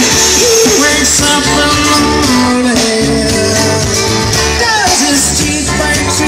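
Rock music with singing and guitar played loud through a boat's Wet Sounds marine speakers and 12-inch subwoofer, with steady heavy bass.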